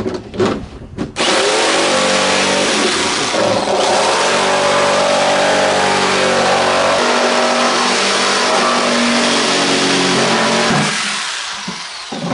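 A power tool cutting a large hole through the plastic lid of an esky cooler. It starts about a second in and runs steadily, its pitch shifting as it bites into the plastic, then winds down near the end.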